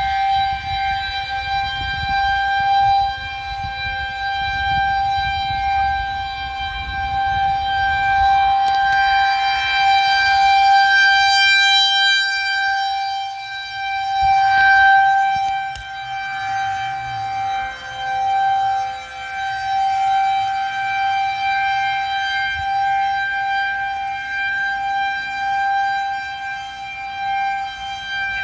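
Federal Signal 2001-130 electro-mechanical outdoor warning siren sounding a steady tone as a tornado warning signal. Its loudness swells and fades as the rotating siren turns.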